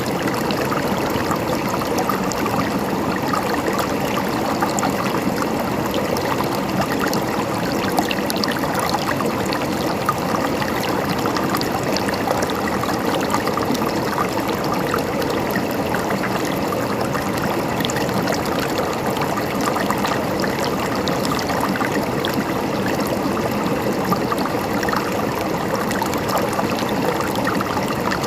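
Running water flowing and gurgling steadily, with fine trickling splashes.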